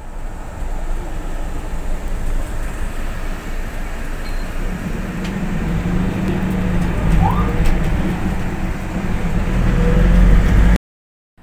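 Road and engine noise inside a moving ambulance, a steady low drone that grows louder towards the end and then cuts off suddenly.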